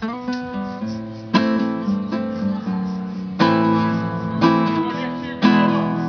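Acoustic guitar starting a song's intro with no singing yet: ringing chords, with a hard strummed accent about every two seconds.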